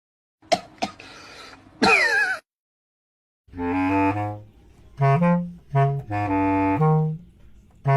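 A melody of several held notes on a saxophone-like wind instrument, starting about three and a half seconds in. Before it come two sharp clicks and a brief wavering high-pitched sound.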